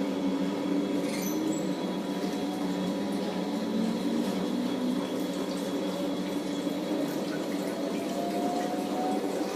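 Fisher & Paykel GW712AU top-loading washing machine at the start of its final spin: the drain pump runs and water rushes out while the drum turns slowly, with a steady motor hum. A faint whine rises slowly near the end as the drum begins to speed up.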